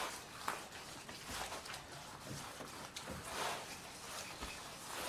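Wet rag scrubbing a bare wooden log wall: faint swishing strokes, roughly one a second, working wallpaper remnants loose.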